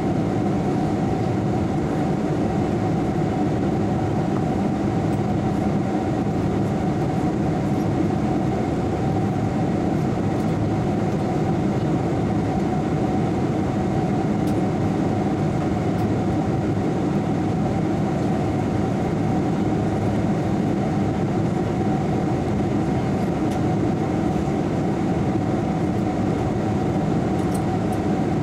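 Steady cabin noise of a jet airliner in cruise, heard from inside the cabin: an even, unchanging rumble weighted toward the low end.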